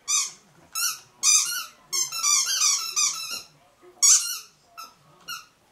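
12-week-old Stabyhoun–Wetterhoun cross puppy whining: a string of high, wavering whimpers in short bursts, one run stretching over about a second and a half.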